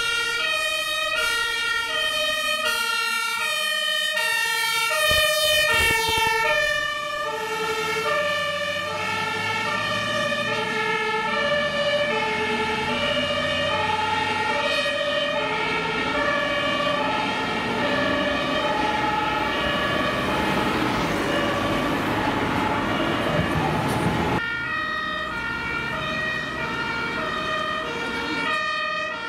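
German fire engines' two-tone sirens (Martinshorn) sounding under emergency signal, with more than one siren alternating high and low tones out of step with each other. Truck engine and tyre noise swells over the sirens as a vehicle passes close, then the sound changes abruptly a little before the end.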